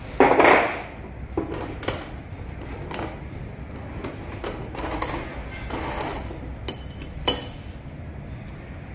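Steel parts of a cartridge mechanical seal handled and set down on a wooden table: scattered light knocks and metallic clinks, with two sharper ringing clinks about seven seconds in. A louder brief handling noise comes just at the start.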